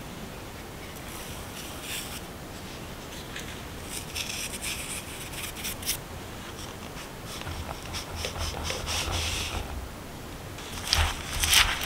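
Seasoning sprinkled in soft rustles onto mashed kabocha squash in a glass bowl, then dry glutinous rice flour poured in with a soft rush. Near the end come louder crunching rubs as the flour and squash start to be mixed by hand.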